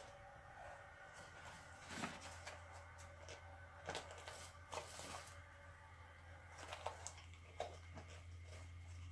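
Faint rustles and light taps of a cat pawing and rummaging among tea-bag sachets in a tea box, a handful of short scrapes scattered through. A low steady hum comes in about two seconds in.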